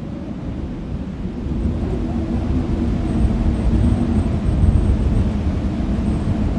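Wind gusting over the microphone, a low rumbling noise that grows stronger about two seconds in.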